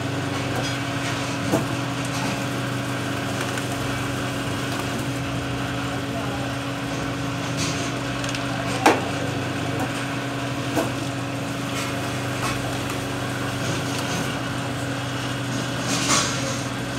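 Hydraulic paper plate making machine running: a steady mechanical hum with a few sharp clicks and knocks, the loudest about nine seconds in.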